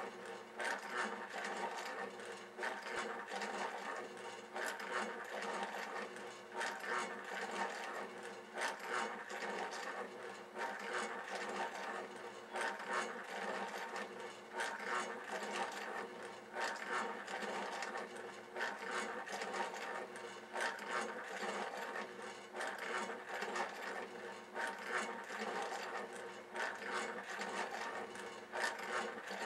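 Wooden rhinoceros-beetle motion display running: a steady mechanical hum with a constant patter of clicking and rubbing from its moving wooden parts.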